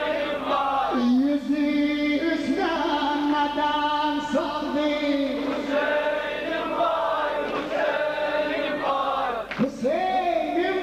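A group of voices chanting a religious mourning lament together, holding long notes that bend and slide in pitch.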